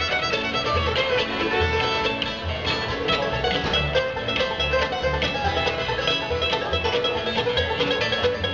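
Bluegrass string band playing an instrumental live through a stage PA: fast picked strings and strummed acoustic guitar over an upright bass keeping a steady beat.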